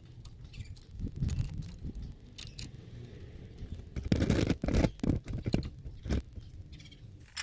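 Handling noises: scattered clicks and scrapes, with a louder cluster of sharp knocks about four seconds in and another just after six seconds.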